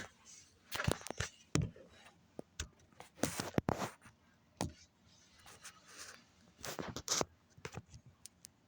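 Handling noise of a phone or camera being shifted and set in place: irregular clicks and knocks with a few dull thumps and a short scrape about three seconds in.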